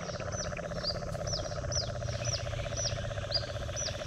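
A bird repeating a short, high, downward-sliding chirp about twice a second, over a steady fast-pulsing trill in the background.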